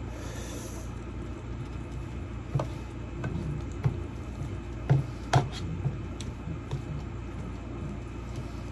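A spoon stirring in a pot: light scraping with a few scattered knocks against the pot, over a steady low hum.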